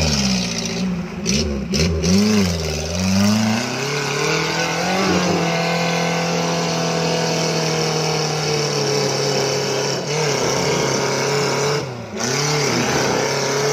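Suzuki Jimny off-road engine revving hard under load while climbing a muddy rut: the revs swing up and down several times at first, then hold high and steady, drop briefly near the end and pick up again.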